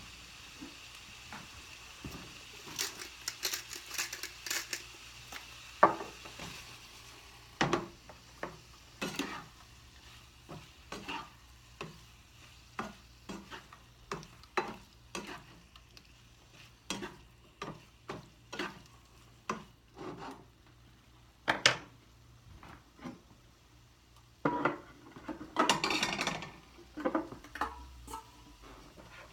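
Kitchen utensils knocking, clinking and scraping against dishes in a string of irregular short knocks, with a longer scraping rustle about 25 seconds in.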